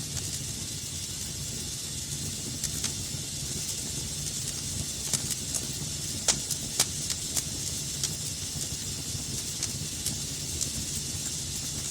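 Wood fire burning in a fireplace: a steady hiss and low rumble of the flames with scattered sharp crackles and pops, a few louder pops near the middle.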